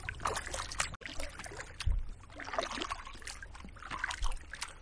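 Kayak paddling: the paddle blades dip and splash in irregular strokes, with water trickling off them, over a low wind rumble on the microphone.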